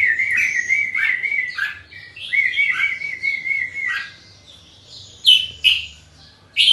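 Caged red-whiskered bulbul (jambul) singing: two runs of quick, rippling warbled notes, then a few short, sharp calls near the end.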